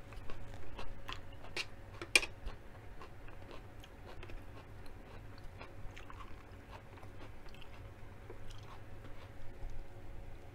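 A person chewing and biting food. A run of crisp crunches comes in the first three seconds, the sharpest about two seconds in, then quieter, sparser chewing.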